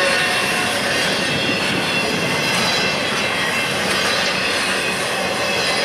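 BNSF double-stack intermodal train passing close by: the steady noise of its well cars' wheels running on the rail, with faint thin high tones over it.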